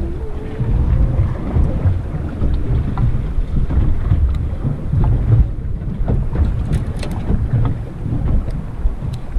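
Wind buffeting the microphone aboard a boat at sea, an uneven gusting rumble, with a few light clicks in the second half.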